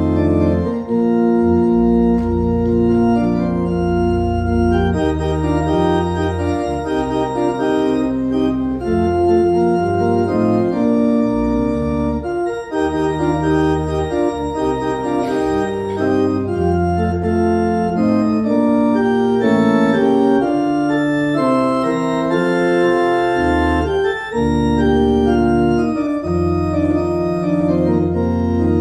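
Organ music for the offertory: slow, held chords over a bass line that moves every second or two.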